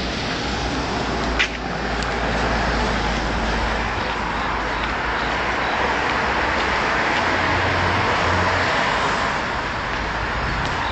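Steady city traffic noise, with one sharp click about one and a half seconds in.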